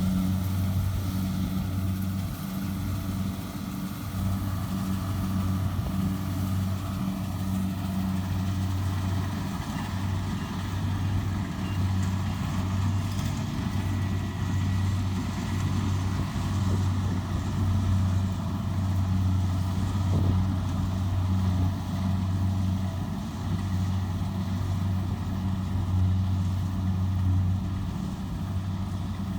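A farm machine's diesel engine running steadily, with a strong low hum that wavers a little in level.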